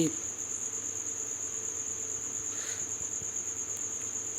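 A steady, high-pitched insect trill in the background, with a faint low hum under it.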